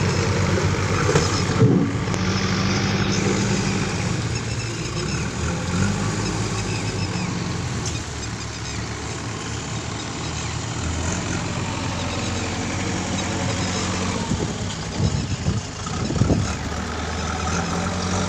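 Diesel farm tractor engine running steadily as it pulls a soil-laden trolley along a rough dirt track, with a few sharp knocks near the end.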